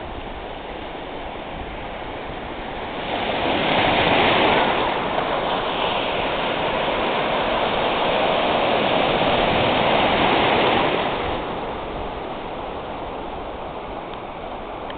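Ocean surf breaking and washing up the shore: a wave builds about three seconds in, breaks close by and its white water rushes in until about eleven seconds, then eases back to the steady wash of small surf.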